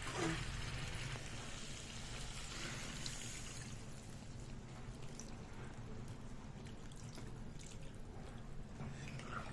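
Water poured from a mug into a kadhai of frying chicken curry masala, a steady pour that is strongest for the first few seconds and then tails off.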